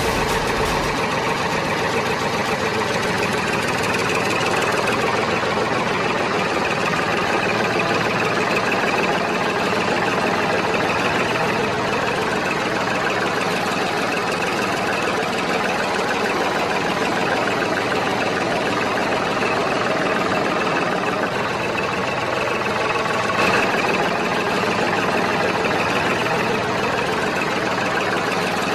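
Small engine running steadily at an even idle, with one brief tick about three quarters of the way through.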